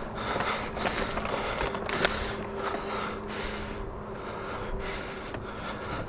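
Footsteps in sandals crunching on dry grass and dirt, about two steps a second, over a faint steady hum.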